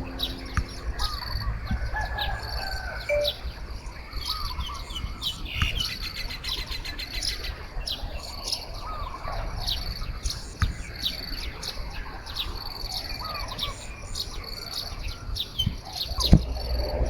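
Birdsong: several birds chirping and calling, with short high chirps repeating throughout, a rapid trill about six seconds in, and slurred whistled notes, over a low steady rumble. A single sharp knock comes near the end.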